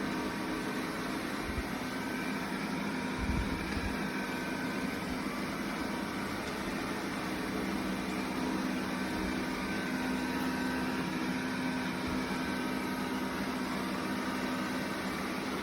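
Dreame L10s Pro Gen 3 robot vacuum running with its suction fan on, a steady whirring hum.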